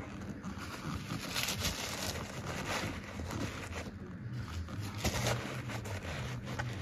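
Dry paper crumpling and rustling as it is packed tightly into a sneaker, with a few louder rustles, over a faint low hum.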